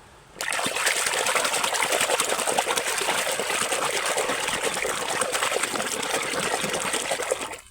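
Water running and splashing steadily over a muddy toy truck as it is washed. It starts about half a second in and stops abruptly near the end.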